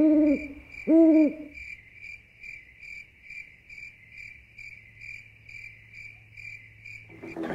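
Owl hooting twice, once right at the start and again about a second in, over a cricket chirping steadily a little over twice a second; the chirping cuts off just before the end.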